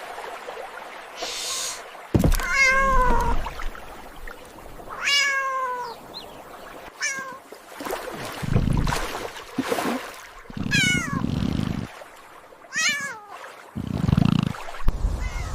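A cat meowing about five times, the calls wavering and sliding down in pitch, with low rumbling bursts of noise in between.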